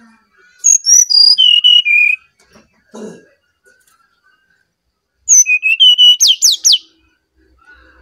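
Brown-chested jungle flycatcher singing two clear whistled phrases. Each is a run of notes stepping down in pitch, and the second ends in a few quick downward-sweeping whistles.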